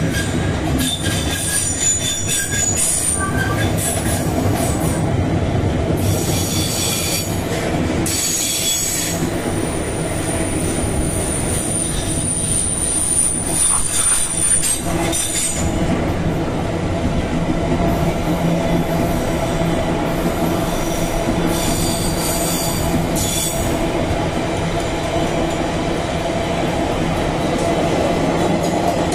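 Freight train wagons rolling steadily past at close range: a continuous rumble of steel wheels on the rails, with high-pitched wheel squeal coming and going and one long squeal held for several seconds near the middle.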